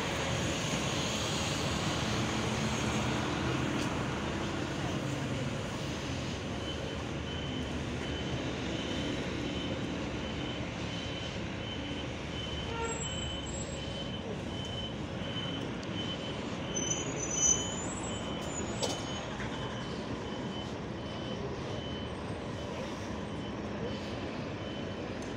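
Bus station traffic: diesel bus engines running and moving with general road noise, the rumble heaviest in the first few seconds. A high electronic beep repeats steadily, about one and a half times a second, for some twelve seconds through the middle, and there is a short, sharp louder sound a little past halfway.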